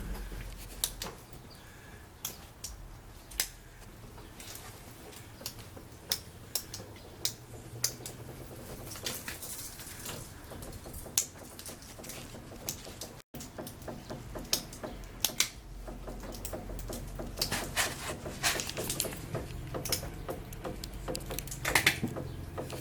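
The Nissan Pathfinder's small original jack is cranked up by turning its handle rod. It makes many irregular clicks and ticks, which come more thickly in the second half.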